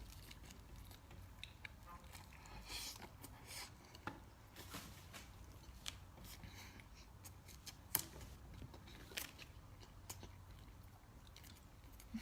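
Faint eating sounds: chewing and small bites, with scattered short clicks and crunches.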